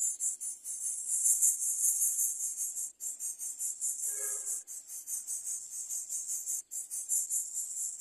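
Insects chirping in a high-pitched chorus that pulses evenly, about seven pulses a second. About halfway through a brief lower bird call sounds once.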